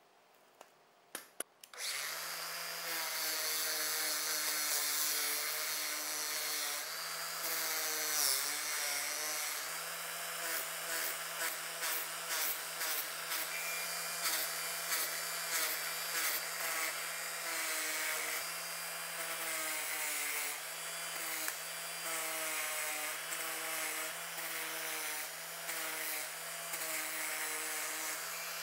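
Angle grinder with a fine sandpaper disc starting up after a few clicks and sanding a steel kitchen knife blade. Its motor hum dips in pitch, with a rasp, each time the disc is pressed onto the steel. It begins to spin down at the very end.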